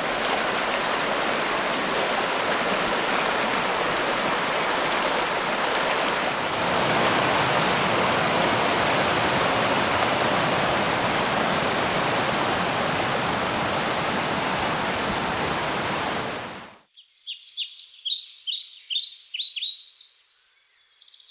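Mountain creek rushing over rocks, a steady, even water noise that grows a little louder about seven seconds in. About seventeen seconds in the water sound cuts off and quick, high chirps of birds follow.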